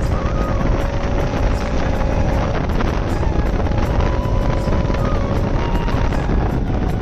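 Motorcycle running at a steady road speed, with wind rushing over the microphone.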